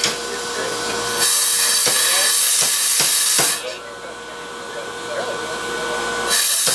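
Power hammer working a spring swage on red-hot steel to form an acorn on a tong rein. Two spells of loud hissing, each a couple of seconds long, come with a few sharp blows of the ram on the swage; the first spell holds four blows about half a second apart.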